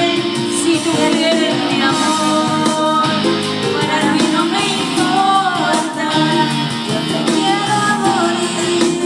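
Karaoke music: a ballad backing track with plucked guitar and a woman singing.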